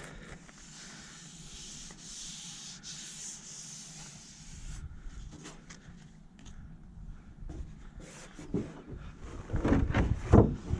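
Sandpaper rubbing on a fibreglass hull in a few strokes, a rasping hiss for the first four to five seconds. Knocks and handling clatter follow near the end, louder than the sanding.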